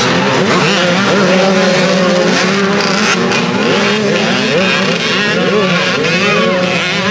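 A pack of youth-class dirt bikes revving hard and accelerating off the start line past the listener, many engines overlapping and rising and falling in pitch as the riders shift.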